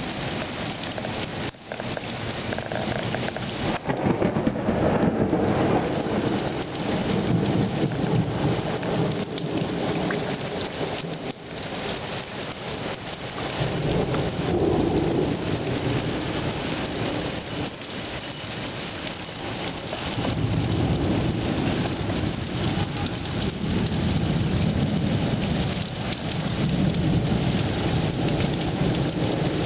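Heavy rain pouring steadily, with thunder rumbling in long rolls several times: about four seconds in, again around the middle, and a long roll through the last third.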